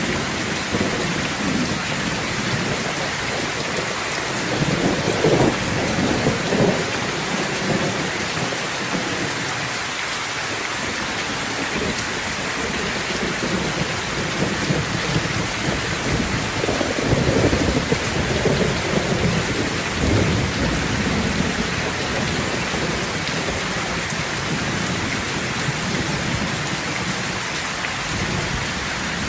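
Steady rain falling, with low rolling thunder rumbles that swell about five seconds in and again for several seconds past the midpoint.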